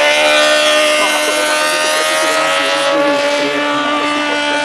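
Classic Suzuki racing motorcycle engine held at high revs, its pitch rising slowly and steadily as the bike accelerates.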